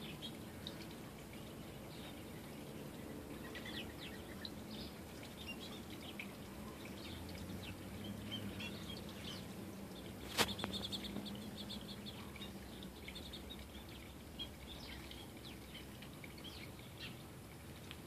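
Small songbirds at a feeder giving many short, high chirps scattered throughout. A single sharp click about ten seconds in is the loudest sound, followed by a quick cluster of chirps.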